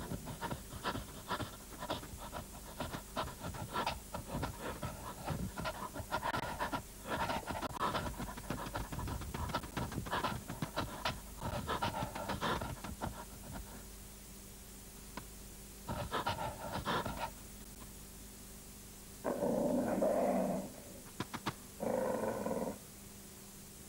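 Grey wolf panting rapidly, then growling twice near the end.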